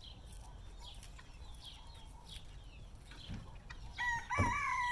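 A rooster crowing once about four seconds in, a single call that steps up in pitch and is held for about a second. Faint high chirps come before it.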